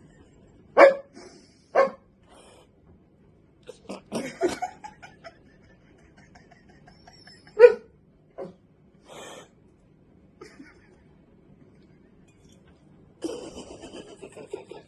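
A dog hiccuping: a series of short, sudden hics at irregular intervals, the loudest about a second in and a little past the middle. Near the end comes a longer, noisier sound.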